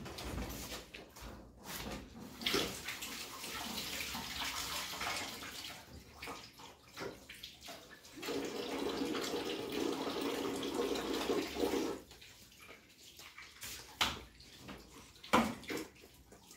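Water running from a tap in two spells of a few seconds each, with a few sharp clicks near the end.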